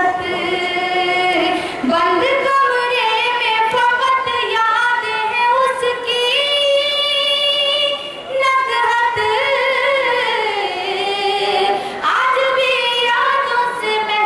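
A woman singing an Urdu ghazal unaccompanied into a stage microphone, in the melodic tarannum style of mushaira recitation. She holds long, wavering notes in phrases, with short breaks about two, eight and twelve seconds in.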